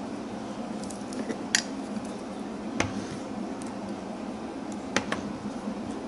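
A handful of light clicks and taps from a rubber stamp being handled and pressed onto an ink pad, over a steady low hum.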